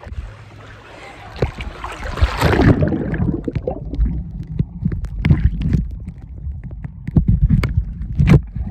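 Muffled water sloshing and splashing heard through a plastic waterproof phone pouch, with a low rumble and many knocks and rubs of the pouch against the microphone.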